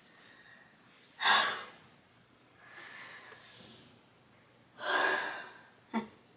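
A woman breathing heavily from exertion: two loud exhales about a second in and about five seconds in, with a softer breath between them. She is worn out after heavy lifting.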